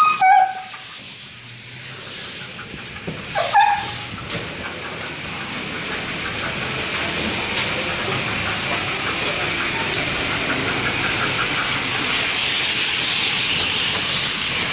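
Steady hissing spray from a self-serve dog-wash hose, growing slightly louder over the first dozen seconds, with two brief high whines near the start and about three and a half seconds in.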